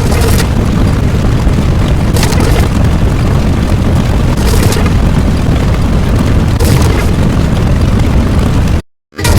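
Loud, continuous booming rumble from an explosion-like sound effect, with a hissing surge about every two seconds. It cuts off abruptly near the end.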